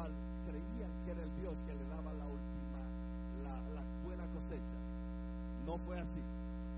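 Steady electrical mains hum with many overtones, unchanging throughout, with faint speech beneath it.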